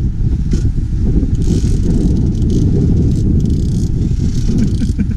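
Wind buffeting the microphone: a loud, steady rumble, with short patches of hiss now and then.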